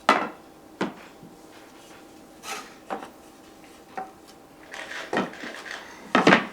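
Scattered short knocks and clinks, about seven of them, as wooden boards and metal screws are handled during assembly of a board gate.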